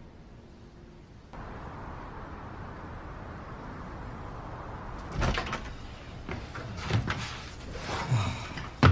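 A door being opened and handled: a run of knocks and clacks over a steady hiss, with the loudest bang right at the end.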